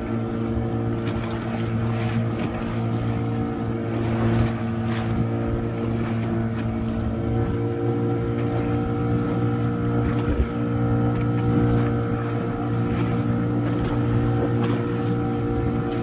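Motor of an open wooden boat running steadily under way, a constant drone with wind and water noise rushing past.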